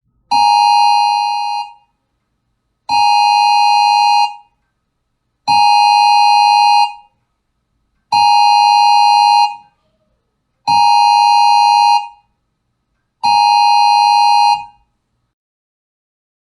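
Loud electronic alarm buzzer tone of a mock emergency alert, sounding six times in a steady rhythm. Each blast lasts about a second and a half, with roughly a second's gap between them.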